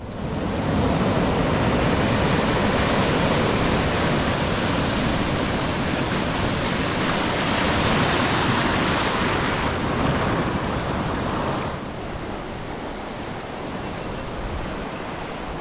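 Ocean surf breaking and washing up the beach, a steady rushing wash. About twelve seconds in it turns quieter and duller.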